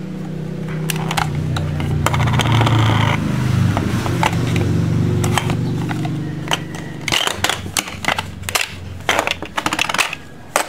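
Plastic clicking and rattling from the Doh-Dough Magic Car Extruder toy car as it is handled and its red snap-on wheels are worked off the axles, with many sharp clicks that come thicker in the second half. A low hum underlies the first several seconds and stops about seven seconds in.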